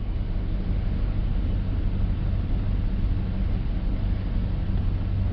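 2006 Nissan Titan's 5.6-litre V8 idling steadily, warmed up, after all four oxygen sensors have been replaced.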